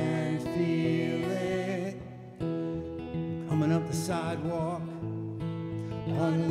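Live folk song: acoustic guitar playing with voices singing over it.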